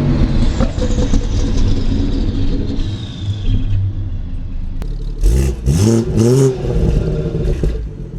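BMW 340i's turbocharged inline-six revving through its stock exhaust: it falls back from a rev at the start and idles, then takes a second quick rev about five seconds in that rises and drops back. The exhaust flap, which opens above about 4,000 rpm, sounds open.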